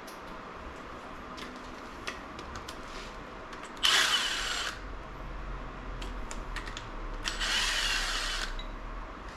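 Handheld power tool run in two short bursts of about a second each, the first the loudest, with light clicks and clatter of tools and parts in between.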